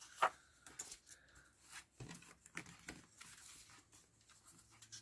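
Sheets of patterned scrapbook paper rustling and crackling as they are handled and turned over, with a sharper crackle about a quarter second in and a soft sliding hiss past the middle.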